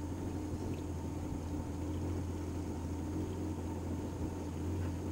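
Boat's outboard motor idling, a steady low hum with no change in speed.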